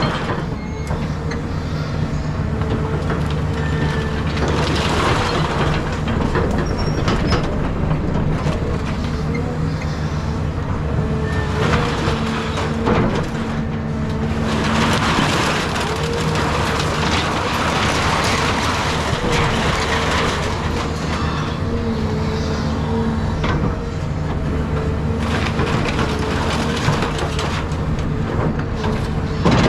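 Caterpillar 323 excavator's diesel engine running steadily under load with a wavering hydraulic whine. Two long stretches of crunching and clattering demolition debris come about four seconds in and again midway.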